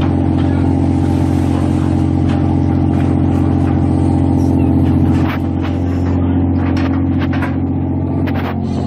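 A boat's engine running with a steady drone. About five seconds in the drone drops slightly, and a run of short clicks and knocks follows.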